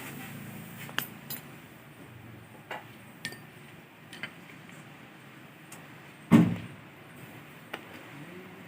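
Metal tools and engine parts clinking and knocking as an engine is taken apart: scattered light clinks, with one heavier knock about six seconds in.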